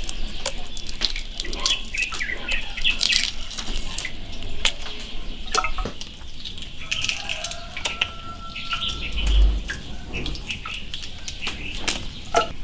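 Century-egg shells crackling in small sharp clicks as they are cracked and peeled by hand, with birds chirping in the background and one dull thump about nine seconds in.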